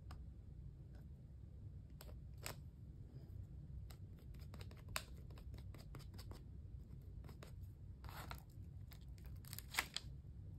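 Faint, scattered scrapes and small taps of a palette knife spreading stencil butter through a stencil onto a paper page, with a longer scrape near the end, over a low steady background hum.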